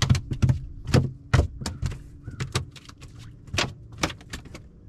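About a dozen irregular knocks and taps, several with a dull low thud, from feet and fishing gear striking a bass boat's deck.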